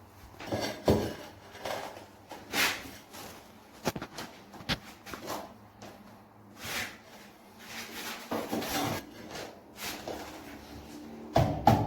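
Renovation work sounds: irregular scraping and rubbing of tools or materials with a few sharp knocks, then a quick run of loud knocks near the end.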